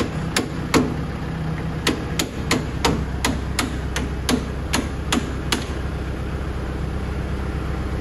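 Steel hammer knocking the yoke of a tractor PTO cardan shaft onto its shaft: about eleven sharp metallic knocks at an uneven pace, roughly two a second, that stop about five and a half seconds in. A steady low hum runs underneath.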